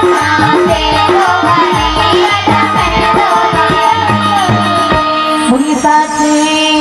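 Live Hindi devotional bhajan: a female voice singing over an electronic keyboard and tabla-led percussion keeping a steady beat. About five seconds in, the drumming stops, leaving held keyboard notes and the voice.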